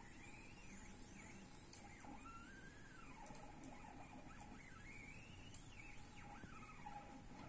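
Faint whine of the self-balancing robot's two NEMA 17 stepper motors. The pitch glides up and down again and again as the motors keep changing speed to hold the robot upright.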